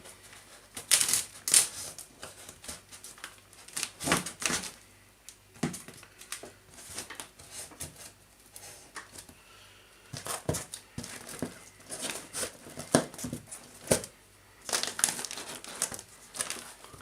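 Cardboard box and its packing being cut, torn and pulled open by hand: irregular bursts of crinkling, tearing and rustling.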